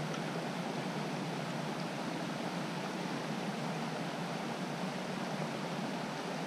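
Small creek running over a rocky riffle: a steady, even rushing of water.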